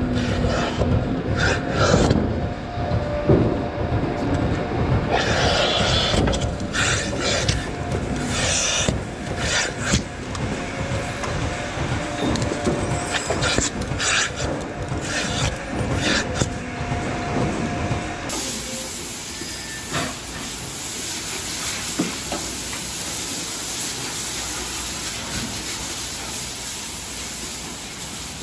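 Milking-parlour equipment clicking and knocking as a milking cluster is fitted to a cow's teats, over a steady machine hum. About two-thirds of the way through, this changes to a steady hiss of a hose spraying water onto the hanging milking clusters.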